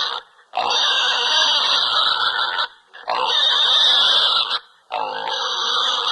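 Animal cries: three long, loud, harsh calls of about two seconds each, with short breaks between them.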